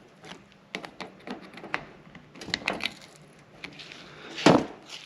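Scattered light clicks and taps as the newly fitted snap ring in a rebuilt Enduro joint is prodded to check that it is seated, with one louder knock about four and a half seconds in.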